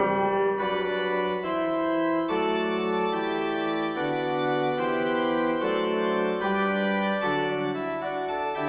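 Slow instrumental keyboard music: held, organ-like chords that shift to a new chord about once a second, with no percussion.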